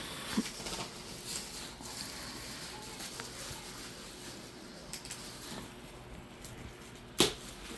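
Bubble wrap and plastic packaging being handled and pulled apart, a light rustle and crinkle with scattered small clicks and one sharp snap about seven seconds in.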